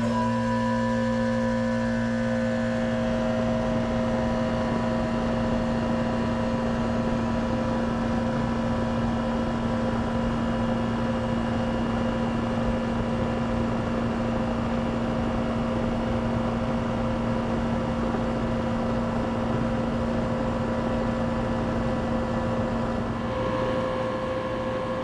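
2006 3-ton WeatherKing central air conditioner with a Bristol reciprocating compressor starting up: a click, then the unit comes on at once and runs with a steady hum.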